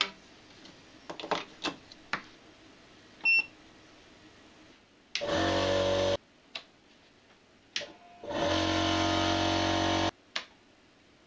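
A few faint clicks and a short high beep, then two loud bursts of distorted electric-guitar music, the first about a second long and the second about two seconds, each cut off abruptly.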